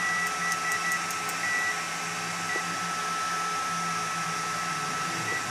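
A digital multimeter's beeper, on a Bside ZT-X, gives short, uneven beeps at one high pitch: several in the first second or so, then a few stray ones later. Underneath runs a steady background whir with a faint constant high whine.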